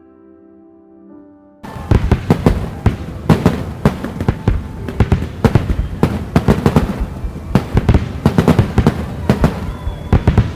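Soft music, then a sudden cut about a second and a half in to a fireworks display: many sharp bangs and booms of bursting shells in quick succession, with no let-up.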